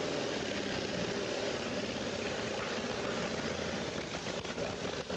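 1911 Ford Model T's four-cylinder engine running just after being started, with no overhaul beforehand. It runs smoky and worn, badly enough to need a full rebore.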